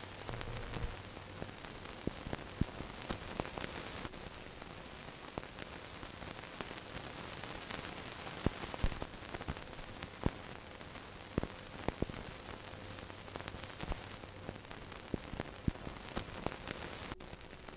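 Old-film crackle: a steady hiss with scattered clicks and pops, with a brief low hum in the first second.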